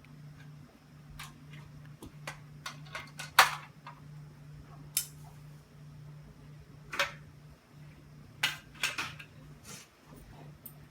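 Fire alarm pull stations being handled and reset: scattered clicks and clacks of their plastic and metal parts, with a few sharper knocks a little past three seconds in, near five and seven seconds, and twice near the end, over a faint steady low hum.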